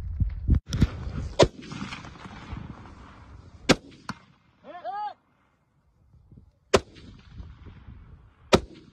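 Single gunshots from an AR-style rifle in competition, about six sharp cracks fired one at a time, one to three seconds apart, each with a brief echo. A short call rising and falling in pitch sounds about halfway through and again at the end.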